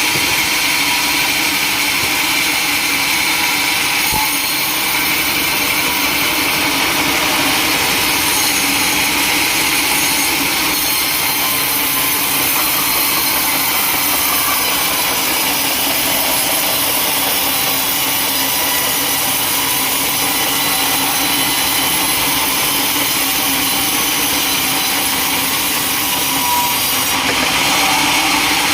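Sawmill saw cutting through wood, running steadily with a dense, hissing cutting noise.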